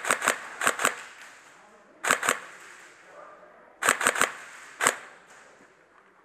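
Airsoft gas blowback pistol, a VFC Glock 19X, firing single shots in quick short groups: about a dozen sharp cracks over the first five seconds.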